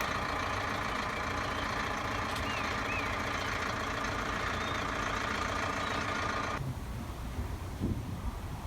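A vehicle's engine runs steadily and then cuts off suddenly about six and a half seconds in. A couple of short bird chirps sound over it about two and a half seconds in.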